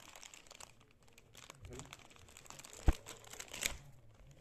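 Clear plastic packing bag crinkling and rustling as a coiled cable is pulled out of it. A sharp click about three seconds in is the loudest sound.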